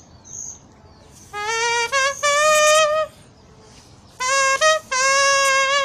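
A man imitating a trumpet with his bare mouth, with no instrument, in two short brassy phrases. The first steps up through a few short notes to a long held note. The second, about a second later, ends on another long held note.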